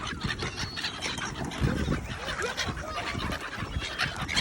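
A flock of domestic fowl calling as they are fed: short overlapping clucks and squeals, with many small clicks among them.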